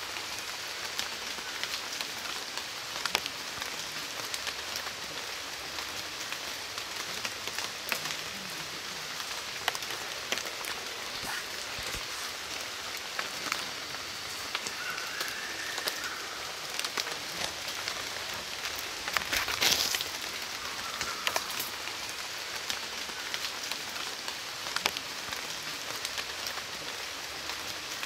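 Steady rain falling, with many individual drops striking close by and a heavier spatter a little past two-thirds of the way in. A brief faint call is heard about halfway through.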